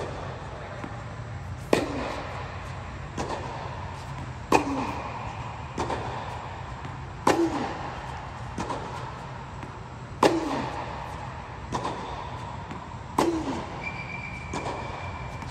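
Tennis racket striking balls in steady practice rally groundstrokes: five sharp hits about three seconds apart, each echoing, with softer knocks of the ball between them over a steady low hum.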